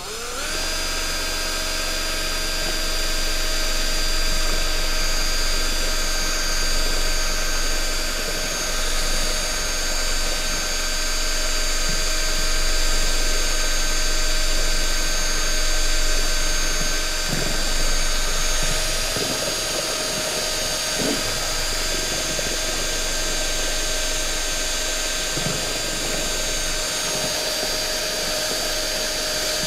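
Cordless drill with a paddle mixer stirring a bucket of paint. It spins up right at the start, then runs at a steady speed with a steady whine.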